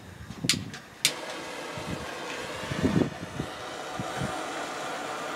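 Handheld propane torch: the igniter clicks twice and on the second click the flame lights and burns with a steady hiss. A few low bumps from handling come about three seconds in.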